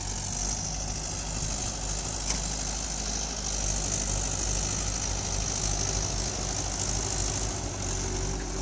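Mahindra 475 DI XP Plus tractor's diesel engine running steadily as it pulls a trailer loaded with soil, growing a little louder a few seconds in.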